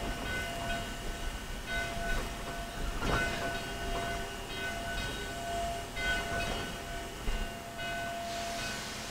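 Cab sound of the Virginia & Truckee #29 steam locomotive on the move: a steady low rumble, with faint high steady tones that come and go every second or two.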